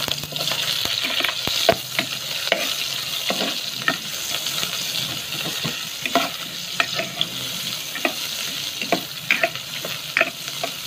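Sliced onions and garlic sizzling in hot oil in a metal pot, the hiss starting suddenly as the onions go in, while a metal utensil stirs them with frequent clinks and scrapes against the pot as they are sautéed.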